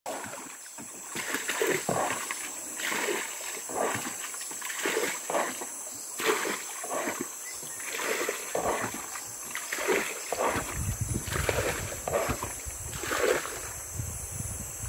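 Water being bailed by hand out of a flooded wooden longboat with a plastic scoop: short splashes of scooped and tossed water, about one to two a second. Wind rumbles on the microphone near the end.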